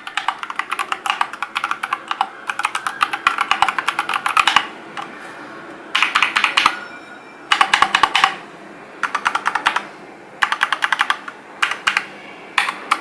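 Typing on an Akko 3084B Plus hot-swappable mechanical keyboard fitted with Akko Jelly Purple tactile switches: rapid runs of key clicks in several bursts, with short pauses between them.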